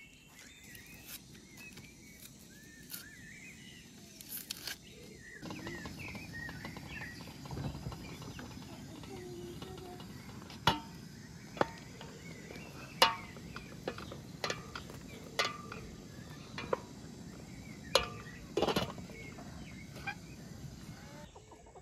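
Birds chirping over outdoor ambience, then cooking sounds at an outdoor stove: a series of about eight sharp clinks and knocks from cookware, a stainless-steel pot, its lid and a spoon, over a low steady background.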